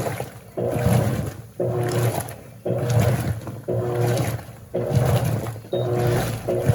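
Electrolux LAC16 top-loading washing machine agitating: a motor hum and whine in strokes about once a second, the pitch alternating from one stroke to the next, with water sloshing in the tub.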